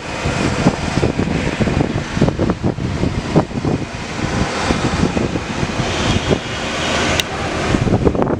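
Strong wind gusting and buffeting the microphone, with the steady hiss of rain, swelling for a few seconds in the second half.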